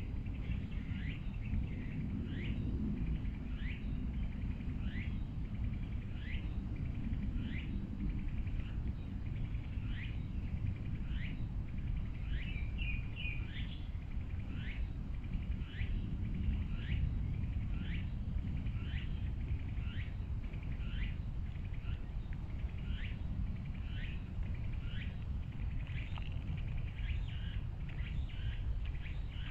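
A bird calling, a short falling note repeated about once a second, with a brief twitter midway, over a steady low rumble.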